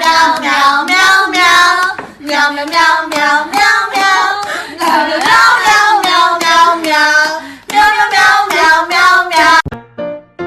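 A high voice in sung, wavering notes that rise and fall, in four long phrases, cutting off suddenly near the end.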